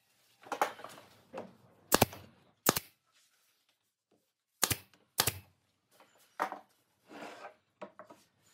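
Pneumatic brad nailer firing four sharp shots, two in quick succession about 2 s in and two more about 5 s in, nailing a leg to a wooden frame. Softer knocks and rubs of the wood being handled and positioned come between the shots.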